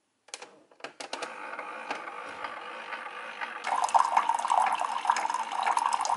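Keurig 2.0 brewer dispensing hot water into a ceramic mug: a few clicks as it starts, then a thin pouring stream that grows louder and takes on a filling tone a little past halfway.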